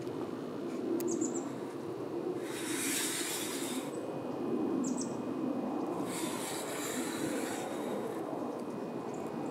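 Outdoor ambience: a steady low background with two swells of hiss a few seconds apart, each lasting about a second and a half, and a couple of short high chirps.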